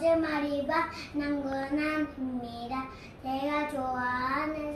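A young girl singing a simple self-introduction song solo, her high child's voice holding notes that step up and down, with short breaks between phrases about a second and three seconds in.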